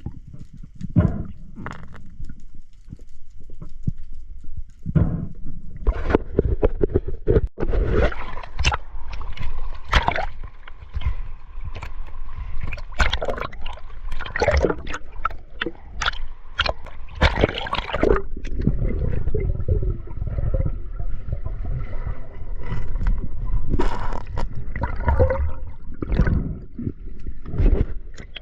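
Sea water gurgling and sloshing in irregular surges.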